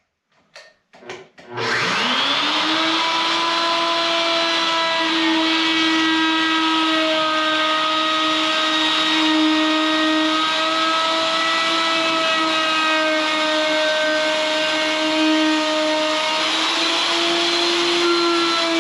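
A few short knocks, then a handheld router spins up about a second and a half in and runs with a steady high whine. Its flush-trim bit cuts the OSB sheathing flush with the window framing, the pitch dipping slightly now and then as it takes load.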